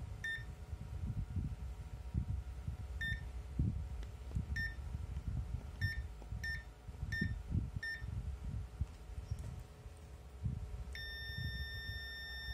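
Digital multimeter (Dekko DM-148T) giving short beeps as its buttons are pressed, about seven over the first eight seconds. Near the end comes one steady continuity beep of under two seconds as the probes touch a blade fuse that reads about 1.2 ohms: the fuse conducts and is intact. Soft knocks from handling the probes run underneath.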